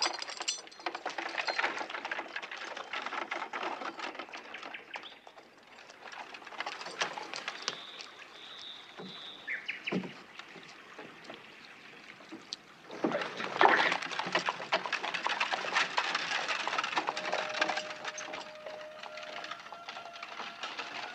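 Horse hooves clopping and a one-horse gig's wheels rolling over stones, with water splashing as it crosses a shallow ford. The sound drops away in the middle while the gig stands, then picks up again about 13 seconds in as it moves off over cobbles.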